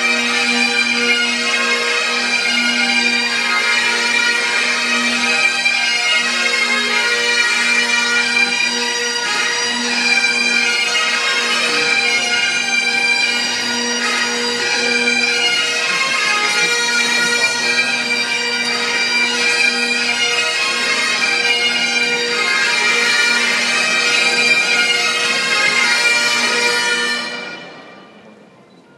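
Bagpipes playing a tune over steady held drones. The playing stops near the end and the sound falls away sharply.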